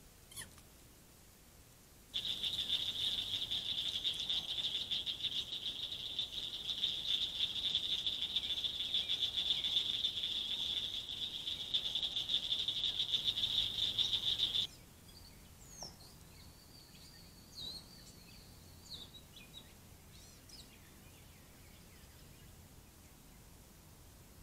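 Night chorus at the pond edge: a high, steady, fast-pulsing trill that starts abruptly about two seconds in, runs for about twelve seconds and cuts off sharply. After it only a few faint bird chirps are heard.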